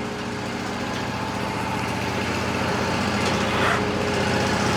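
Wood-Mizer LT40 band sawmill's engine running steadily at an even pitch, growing slightly louder.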